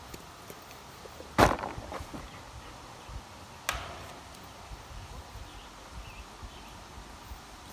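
Two sharp knocks, a loud one about a second and a half in and a lighter one about two seconds later, over low uneven rumbling and small clicks of handling.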